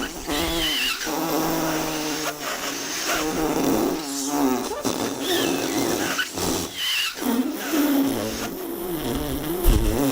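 The Noo-Noo vacuum-cleaner character's comic sound effects: a continuous run of snuffling, slurping vacuum noises with wobbling pitched tones and several short falling squeaks.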